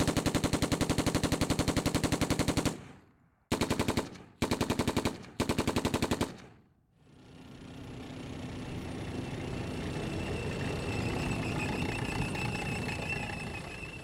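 Automatic gunfire sound effect: a long burst of rapid fire at about ten rounds a second, then three short bursts. After that comes a long rush of noise that swells up over several seconds and slowly fades.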